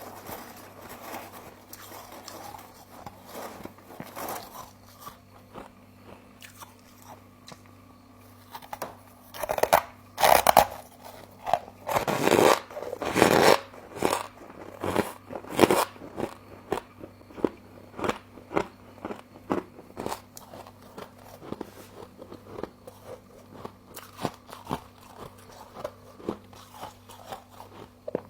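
Close-up crunching and chewing of frost, which has a granular, snow-like crunch. Soft, scattered crunches give way to a run of loud bites about ten seconds in, followed by steady smaller crunches.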